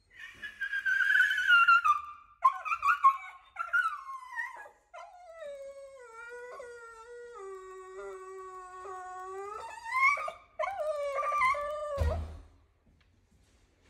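Alaskan Klee Kai whining and howling. A string of high falling whines is followed by one long whine that slides slowly downward, then rising whines near the end, cut off by a low thump.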